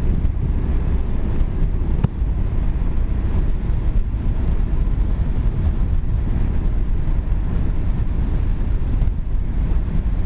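Honda NC750S motorcycle on the move: a steady low rumble of wind on the microphone mixed with engine and road noise, with one brief click about two seconds in.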